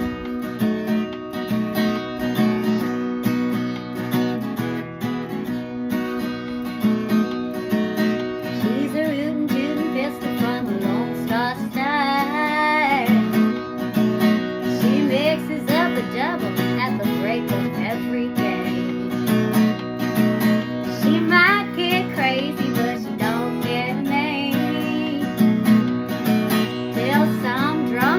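Acoustic guitar strummed steadily in a country song; from about nine seconds in, a higher wavering melody line joins it.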